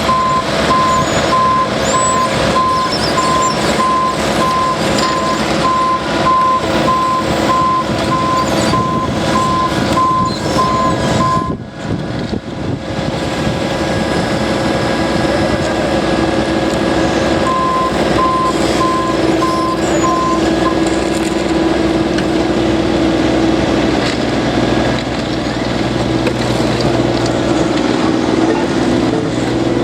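Backup alarm on paving machinery beeping steadily over diesel engines running. The beeping stops after about eleven seconds and comes back for a few seconds later on, while the engine noise continues.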